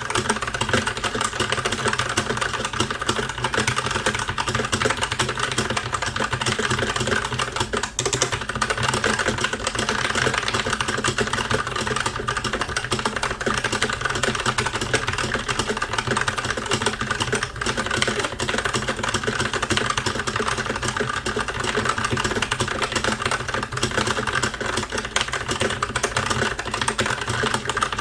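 Fast typing on a Tecware Phantom tenkeyless mechanical keyboard with Outemu brown switches: a rapid, continuous stream of key clacks during a speed-typing test, with a brief pause about eight seconds in.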